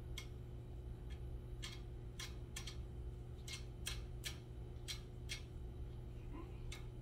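About a dozen short, sharp clicks at uneven intervals as metal parts of a heat press's hat attachment are handled and wing nuts are tightened onto their screws, over a steady low hum.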